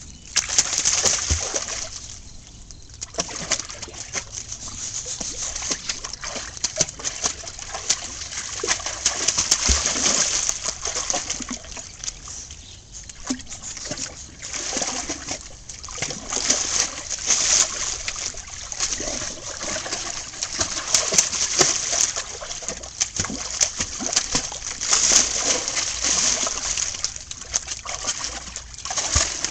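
A dog splashing about in a garden pond, water sloshing and splattering over and over, louder and quieter by turns every few seconds.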